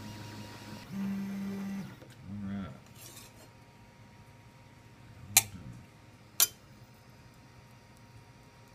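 3D printer running with a steady motor hum, with two louder steady motor tones about a second and two seconds in before the hum dies away. Later, two sharp clicks about a second apart stand out as the loudest sounds.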